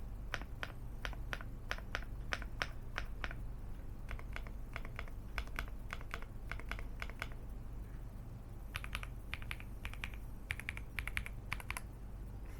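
Typing on an LMK81 75% full-aluminium mechanical keyboard with a polycarbonate plate and Akko switches: irregular runs of key clicks, with brief pauses and a couple of quicker flurries near the end.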